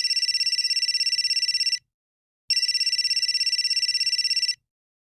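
Mobile phone ringtone: an electronic trilling ring, two rings of about two seconds each with a short pause between.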